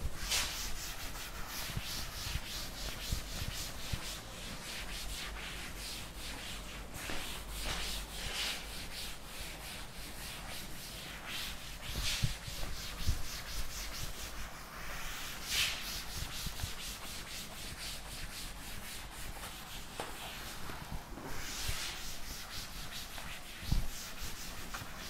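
Blackboard duster wiping chalk off a chalkboard in repeated rubbing strokes, with one knock near the end.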